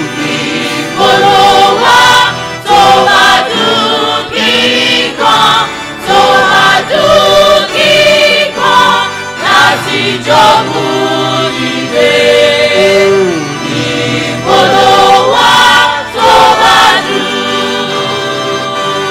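Mixed church choir singing a gospel hymn in parts, phrase after phrase swelling and easing.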